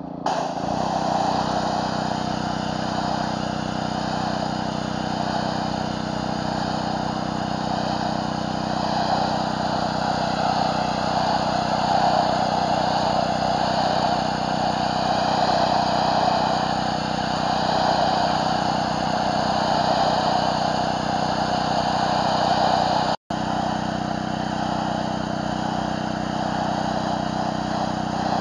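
Gas-engine pressure washer running steadily at full throttle, with the hiss of high-pressure water from a surface cleaner working over concrete. The sound drops out for an instant about four-fifths of the way through.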